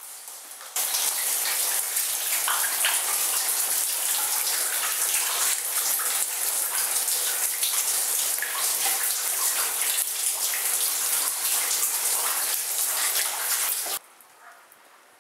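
Steady rushing, splashing water, starting and stopping abruptly.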